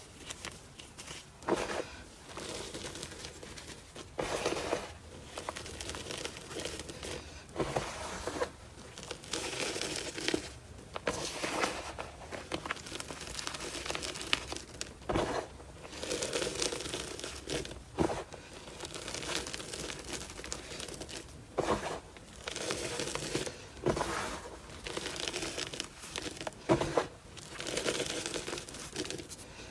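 Hands crumbling and squeezing a basin of dry, crumbly orange powder and letting handfuls fall back onto the pile: soft crunching and rustling in irregular bursts every second or two, with a few sharper crunches.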